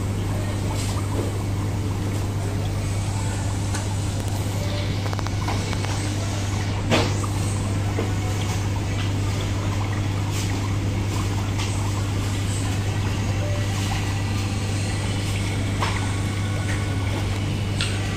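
Live seafood tank's pump and aeration running: a steady low hum over an even water hiss, with a sharp click about seven seconds in.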